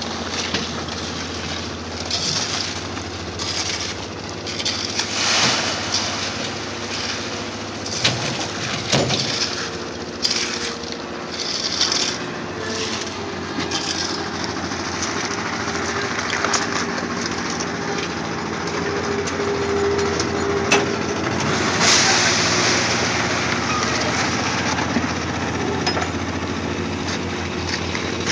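An engine running steadily under repeated scraping strokes of shovels and rakes through wet concrete.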